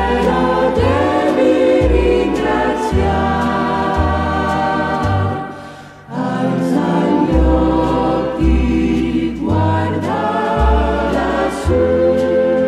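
Choir singing held notes over music with a low bass line that moves in steps. The music fades briefly about six seconds in and comes back.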